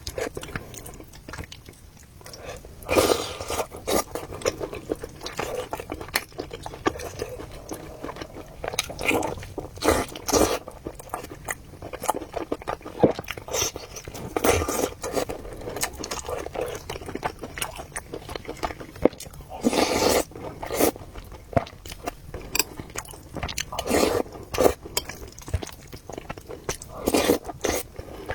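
Close-miked eating: chewing and biting in irregular bursts, with occasional scraping.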